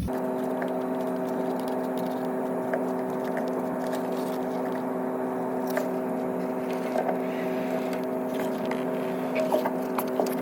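Steady machine hum holding several fixed pitches, with scattered light clicks and a few sharper metallic taps near the end.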